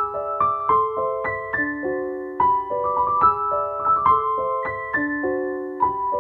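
Background piano music: a gentle melody of single notes struck one after another at an even pace.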